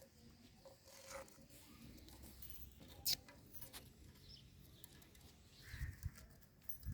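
Indian ringneck parrot gnawing and picking at a guava: faint scratching and nibbling, a sharp click about three seconds in, and a few soft thumps near the end.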